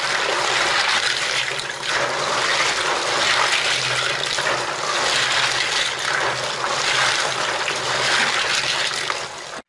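Tap water pouring into a tub of snails while hands scrub and stir the shells through the water: a steady splashing and sloshing as the snails are washed.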